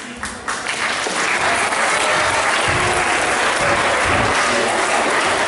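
Audience applauding: a few separate claps swell within about a second into steady, full applause.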